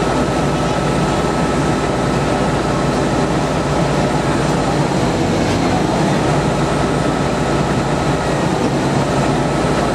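Diesel engine of an Austrian-built multiple tie tamper (track tamping machine) running steadily at standstill, a loud low running noise with a faint high whine over it.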